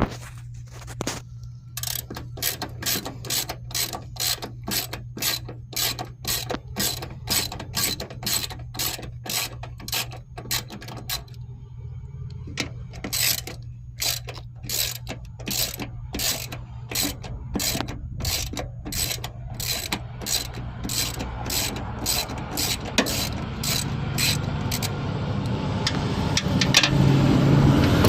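Ryobi ZT480E battery-powered zero-turn mower running: a steady electric hum with a regular clicking, about two to three clicks a second, that stops briefly partway through. The running grows louder near the end.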